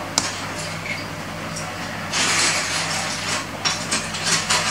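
Small LEGO plastic pieces handled and pressed together: a sharp click just after the start, a short rustling scrape about two seconds in, and a run of quick clicks near the end.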